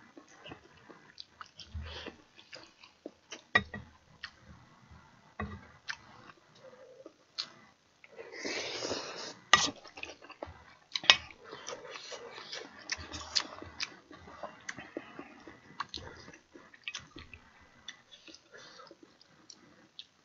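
Close-miked eating of budae-jjigae and rice: chewing and mouth noises, with many short, irregular clicks. A longer stretch of noise comes about eight seconds in.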